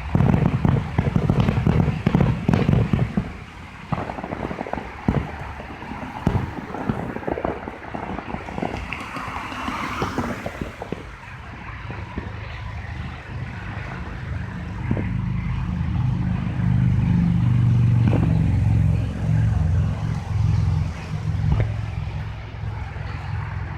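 Fireworks going off, a run of sharp bangs and crackles that is densest in the first few seconds, with a rising hiss near the middle. A low vehicle rumble swells up in the second half.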